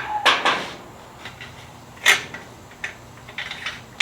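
Handling clatter from the removed exhaust oxygen sensors: a rustling clatter just after the start, a sharp knock about two seconds in, then scattered light clicks.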